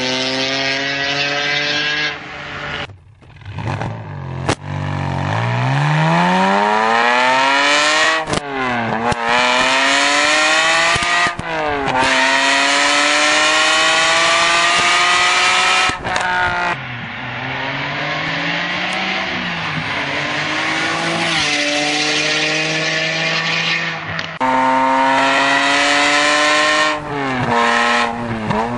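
Ferrari 550 Maranello's V12 through a Larini exhaust, accelerating hard through the gears: the engine note climbs in pitch over a few seconds, then drops sharply at each upshift, with short lifts off the throttle between runs.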